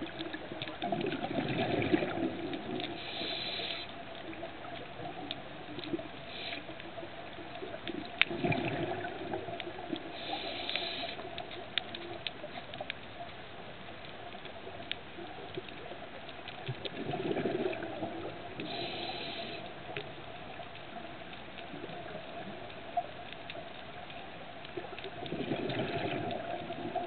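Scuba diver breathing through a regulator underwater: a low bubbly rush of exhaled air about every eight seconds, each followed by the short hiss of an inhalation, four breaths in all. Faint scattered clicks come in between.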